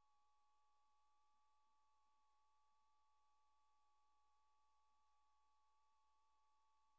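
Near silence, with only a faint steady tone that does not change.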